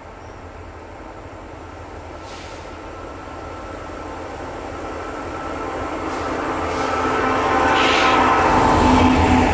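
Freight train hauled by diesel locomotives approaching. The engine drone and rumble of the train grow steadily louder until the lead locomotive draws level near the end, with a brief hiss about eight seconds in.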